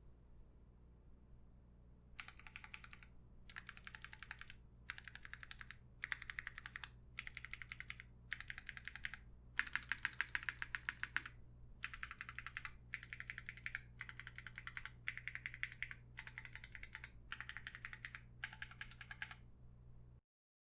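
Mechanical keyboard typing on a Mekanisk Klippe S with lubed Alpaca linear switches on 67.5 g springs, a polycarbonate plate and GMK keycaps: short bursts of rapid keystrokes, about a second each, with brief pauses between, starting about two seconds in and stopping near the end. A low steady hum lies underneath.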